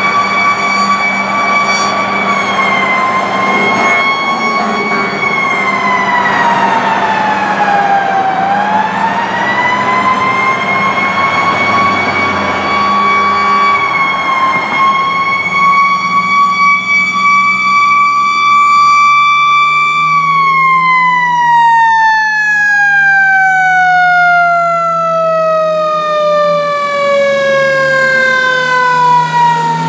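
Fire engine siren wailing as the truck approaches and passes: the tone holds high, dips and climbs back about eight seconds in, then falls steadily in pitch over the last ten seconds. The truck's engine runs underneath.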